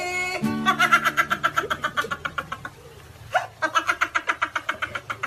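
Teenage boys laughing hard, a high-pitched rapid ha-ha-ha in quick pulses, in two bouts with a short lull about halfway through. The guitar and singing break off just at the start.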